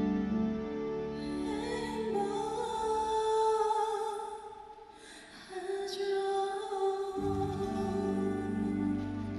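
A woman singing live into a microphone over instrumental accompaniment, holding long notes. About halfway through the music falls almost away, then her voice comes back and the low accompaniment re-enters near the end.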